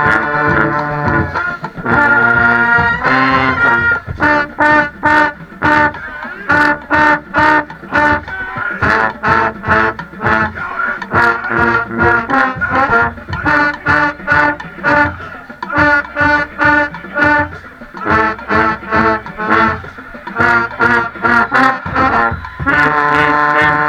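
Marching band playing a stand tune in the stands: brass ensemble with drums, punchy short repeated notes in a fast rhythm, with a few longer held chords.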